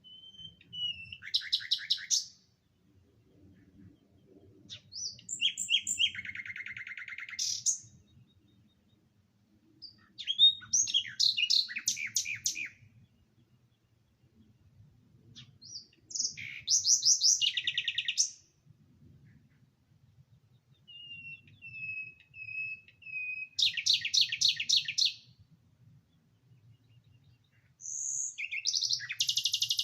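A songbird singing: six phrases of fast, trilled notes, each a second or two long, with pauses of a few seconds between them.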